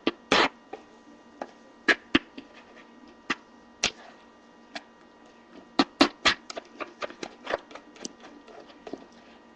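Kitchen knife knocking on a cutting board while dicing a tomato: sharp, irregular chops, with a quicker run of them about six seconds in.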